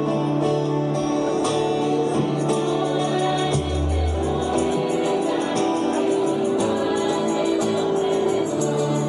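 A choir singing a hymn in long held notes over instrumental accompaniment, with a deep bass note sounding briefly about three and a half seconds in.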